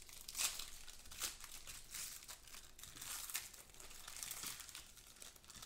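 Foil trading-card pack wrapper crinkling and tearing under the hands as a pack is opened, a run of irregular crackles.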